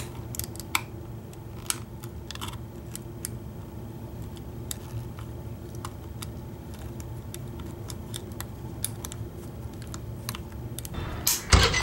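Scattered light metal clicks and ticks of a hook pick raking and setting the wafers of a single-sided, five-wafer motorcycle ignition lock under tension, over a steady low hum. Near the end a louder bump as the lock is rocked open.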